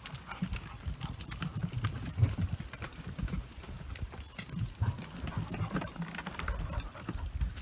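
Footsteps of a person and dogs on the planks of a wooden footbridge: an uneven run of dull knocks on the boards.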